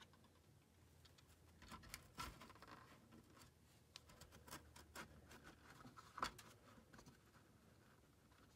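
Faint light taps and small scrapes of a model railroad tank structure being set down on the layout scenery and nudged into place by hand, with the clearest taps about two seconds in and about six seconds in.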